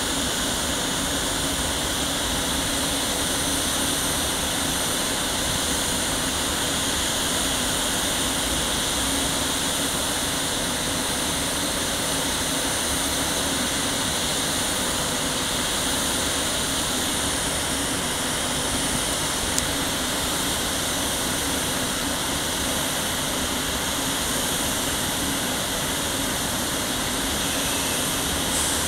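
PKP EP09 electric locomotive standing at the platform, its cooling blowers running: a steady fan-like hum with a few held tones over it.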